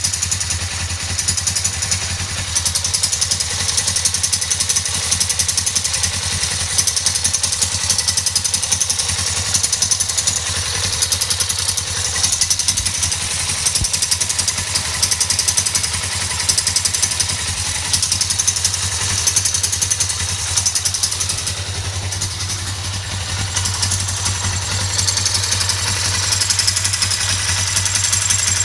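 2008 Suzuki GS500's parallel-twin engine idling steadily with a ticking noise, one that appeared after the valve shims were replaced and whose cause the owner does not know.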